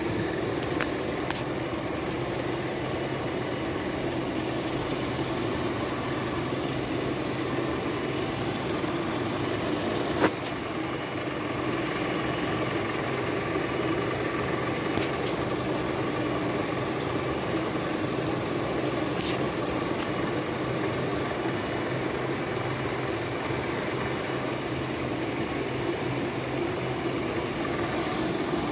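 Homemade lathe rig turning a glue-applicator roller, running with a steady mechanical hum. A faint high whine joins in from about ten seconds in until a little past two thirds of the way, and there is a single sharp click about ten seconds in.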